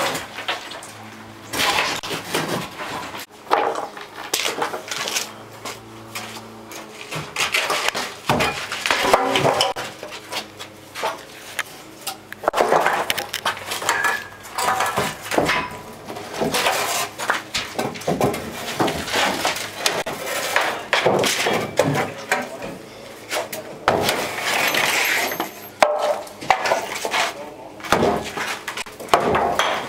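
Wooden formwork boards and framing being knocked loose, pulled down and clattering against each other: many irregular knocks and rattles of wood, some sharp and loud.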